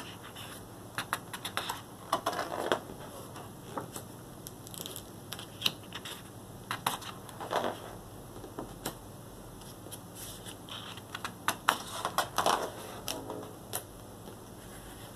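Stiff cardstock pages of a print book being handled and turned: scattered sharp clicks and taps with short paper rustles, in three bursts as pages are turned over.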